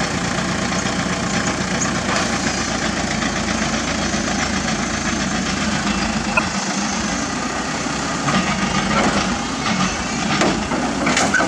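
Diesel engine of heavy equipment running steadily, with a few faint knocks.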